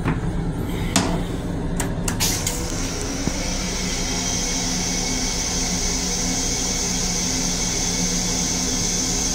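Metro-North M7 railcar toilet flushing: a few clicks and knocks, then a steady hissing rinse spray that starts about two and a half seconds in and keeps going, over the constant low hum of the train car.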